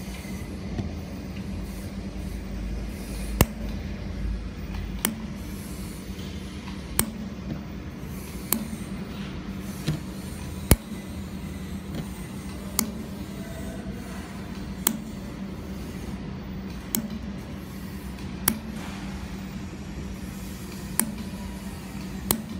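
Handheld fiber laser welding machine at work: a steady hum and hiss, broken by sharp clicks every one to two seconds.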